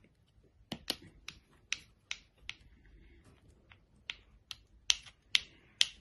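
Snap lids on a strip of small plastic craft paint pots being prised and popped open: a dozen or so sharp plastic clicks a few tenths of a second apart, with a short pause around the middle.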